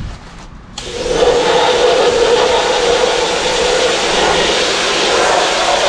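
Ryobi 2000 PSI corded electric pressure washer kicking on about a second in, then running steadily with a hum and the hiss of its spray.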